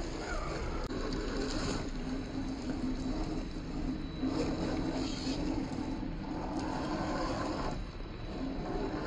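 1/10-scale RC rock crawler's small electric motor and gear drive running steadily under load as it crawls over rocks.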